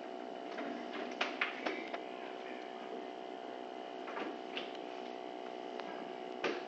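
Steady electrical hum with several tones held level, with a few faint light clicks and knocks from handling, about a second in, around four seconds in and near the end.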